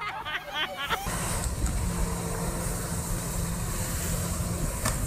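Short high shrieks, then a steady engine drone with a rushing water hiss from the jet ski that drives a flyboard's water jets.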